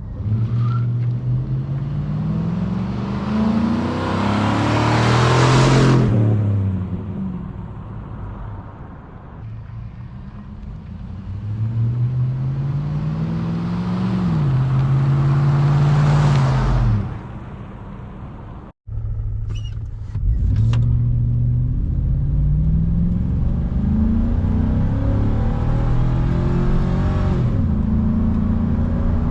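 2006 Chevy Silverado's 5.3-litre V8, on its stock air intake, accelerating hard in three runs, the engine pitch climbing and dropping back at each upshift. The sound cuts out briefly a little after halfway.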